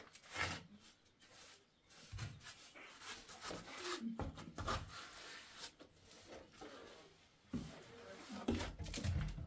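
Steel trowel scraping and smoothing wet mortar on a window sill, in irregular strokes with a few short knocks.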